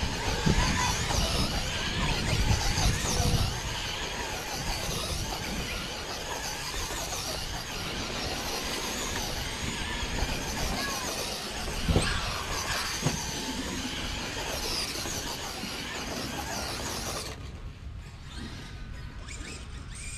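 Electric RC bash cars driving about, their brushless motors whining up and down in pitch over tyre and chassis noise, with a sharp knock about twelve seconds in. The high whine drops away about seventeen seconds in.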